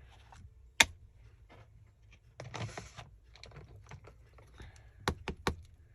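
Craft supplies handled on a tabletop while stenciling: a sharp click about a second in, a short rustle midway, then three or four quick taps near the end.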